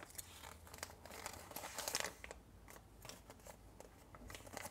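Faint crinkling and rustling of a surprise egg's folded paper leaflet and small packaging being handled and unfolded, with scattered small clicks. The rustling is busiest in the first two seconds and thins out after.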